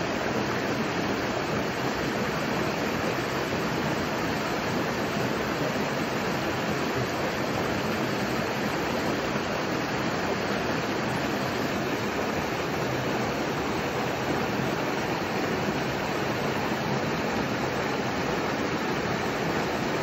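Shallow stream rushing over rocks and small waterfalls: a steady, even rush of water.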